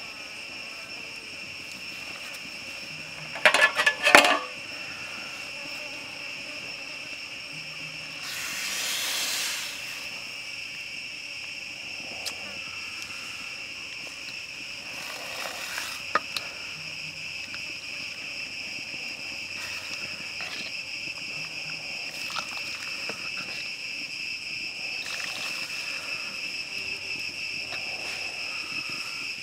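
Steady high-pitched drone of insects at two pitches throughout, with a cluster of metal clanks about four seconds in as a metal ladle knocks against the steel wok. A brief soft rush of noise comes around nine seconds in, and a few light clicks later on.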